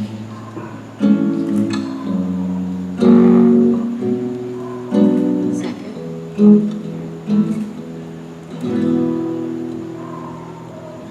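Guitar playing the instrumental introduction to a slow love song: a chord struck and left to ring about every two seconds, with no singing yet.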